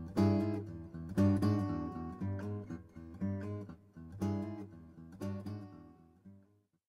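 Acoustic guitar music: chords strummed about once a second, fading away and stopping shortly before the end.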